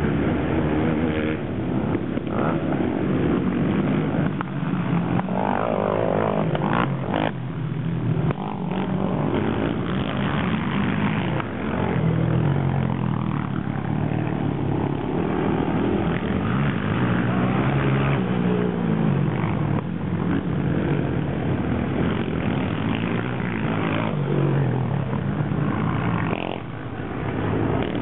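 Racing quad bike engines revving hard, their pitch rising and falling again and again as the riders accelerate and back off around the dirt track.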